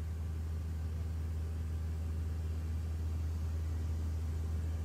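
Steady drone of the Mooney M20E's four-cylinder Lycoming engine and propeller in flight, heard inside the cabin: a deep, even hum with a hiss of air noise over it.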